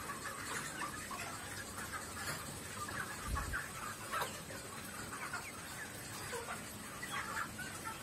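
A large flock of young white broiler chickens clucking and peeping, many short calls overlapping without a break. A brief low bump comes a little after three seconds in.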